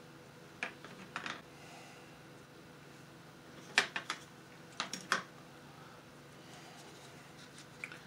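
Light clicks and taps of small plastic model-kit parts being handled and fitted together, in four short clusters.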